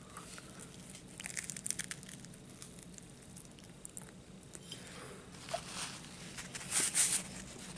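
A man chewing a bite of French dip sandwich close to the microphone. Crackly, crunching mouth sounds come in two spells, about a second in and again near the end, the second louder.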